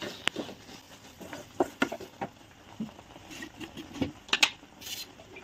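Wooden spatula stirring a thick, sticky mix of ground roasted pearl millet and peanuts in jaggery syrup in a metal kadai, with scattered scrapes and light knocks of the spatula against the pan; the syrup has boiled down. A sharp knock comes just after the start and a few louder ones about four seconds in.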